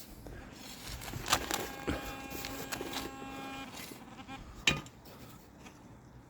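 Shovel digging into soil with a few sharp strikes, the loudest near the end, while a Minelab Equinox 800 metal detector sounds a steady single-pitch target tone for about two seconds near the middle.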